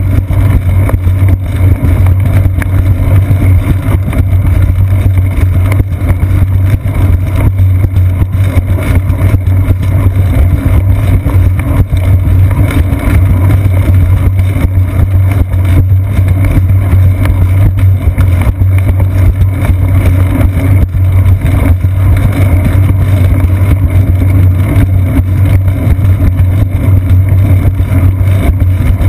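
Loud, steady rumble of wind and road vibration picked up by a seat-post mounted GoPro action camera as the bicycle rolls along a concrete path.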